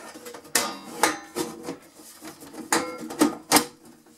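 Thin sheet-metal top cover of a Sony TC-KE400S cassette deck being lowered and slid back onto the chassis: about five sharp metal knocks and clatters, each leaving a brief ring in the panel, the loudest two near the end.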